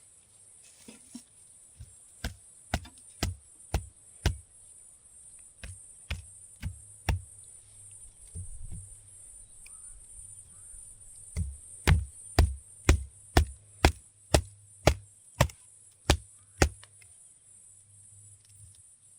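Repeated sharp chopping blows, about two a second, in two runs with a pause between; the second run is louder. A steady high insect buzz runs underneath.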